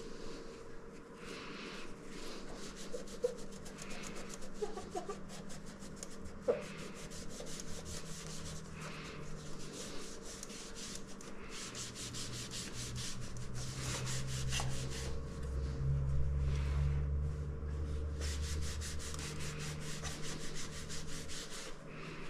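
Cloth rubbing over the glass panels of a stained-glass ceiling light fixture in quick repeated scrubbing strokes, cleaning off built-up grime. A steady faint hum runs underneath, and a low rumble swells in the second half.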